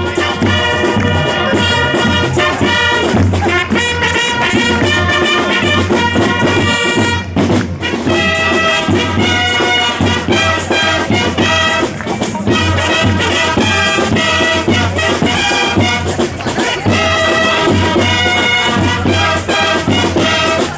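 Fanfare band music: brass fanfares playing sustained notes over a steady drum beat.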